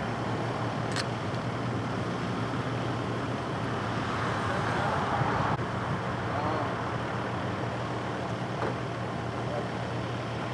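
A vehicle engine idling with a steady low hum under a constant hiss of road and traffic noise; the noise swells briefly about four seconds in.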